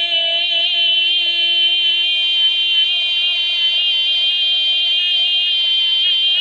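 A loud, steady, high-pitched buzzing tone with many overtones, alarm-like, held without a break.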